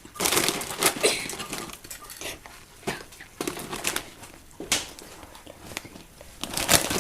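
Scattered light clicks and rustling from food, dishes and packaging being handled during hot-dog assembly.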